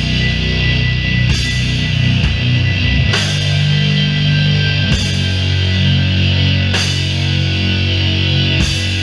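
Doom metal band playing live, loud: heavily distorted low guitar and bass chords held for seconds at a time, with a crash cymbal struck on a slow, even beat about every two seconds.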